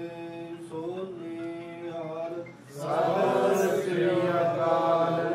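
Sikh devotional kirtan: held, drone-like notes with a chanted melody moving over them, becoming fuller and louder about three seconds in.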